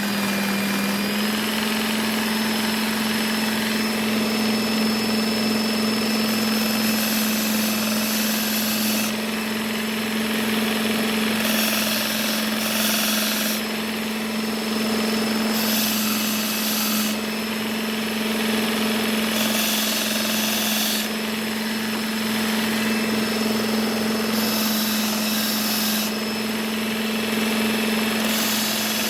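Work Sharp Ken Onion Edition belt sharpener running with its stropping belt, the motor giving a steady hum that steps up slightly in pitch about a second in. A hiss swells for a second or two every few seconds as a knife blade is drawn across the compound-loaded belt.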